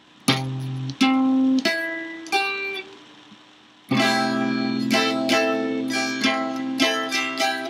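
Fender Stratocaster electric guitar played slowly, note by note: four single picked notes about two-thirds of a second apart, a short pause, then about four seconds in a run of picked notes that ring on over one another like a held chord.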